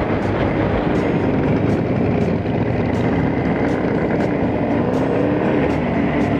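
Motorcycle engines running under way as a group of Jawa/CZ 350 motorcycles rides along, heard from one of the moving bikes; an engine's pitch rises and falls a few seconds in.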